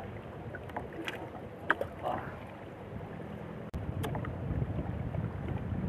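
Wind on the microphone in a small fishing boat at sea, with a few light clicks in the first half; the wind noise jumps louder a little past halfway.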